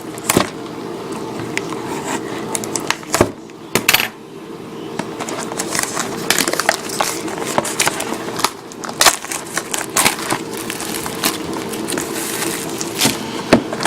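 Shrink wrap being cut and torn off a sealed trading-card hobby box: plastic crinkling, with irregular clicks and sharp taps from handling the box, over a steady low hum.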